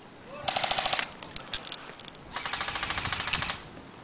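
Airsoft guns firing on full auto in two rapid bursts: a short one about half a second in, then a longer one of just over a second near the end.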